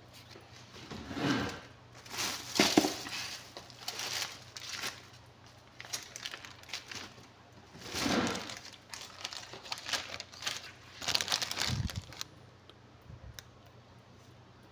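Intermittent crinkling and rustling: about five irregular bursts, the loudest a little after two seconds and near twelve seconds, with quieter gaps between.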